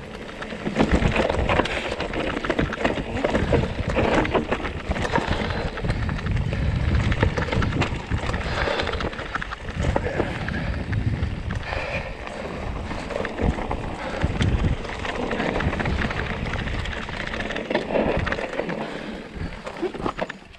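Mountain bike being ridden over a rough trail: tyres on loose ground, clatter from the bike, and wind on the microphone.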